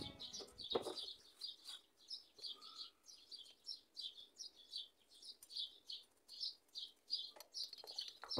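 Faint bird chirping: short high chirps repeated about three times a second, with a few light clicks.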